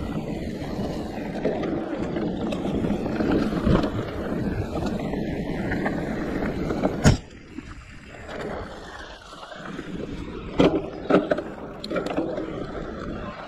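Giant Reign E+ electric mountain bike ridden fast along a dirt forest singletrack: steady rumble of tyres and wind. A sharp knock comes about seven seconds in, after which it goes quieter, and a few sharp clacks follow near the end.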